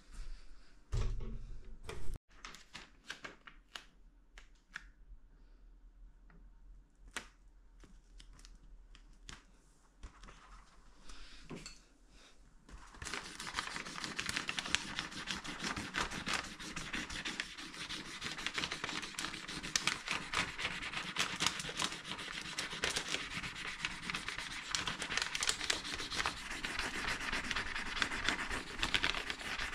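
Two low knocks, then scattered light clicks, then from about thirteen seconds in a continuous scratchy rubbing sound.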